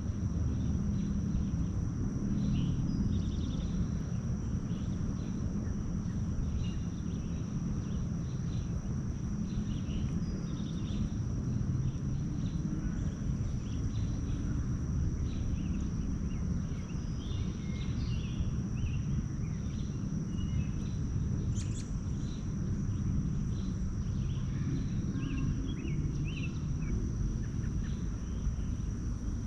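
Outdoor woodland ambience: small birds giving scattered short chirps, more of them in the second half, over a steady low rumble and a continuous thin high-pitched tone.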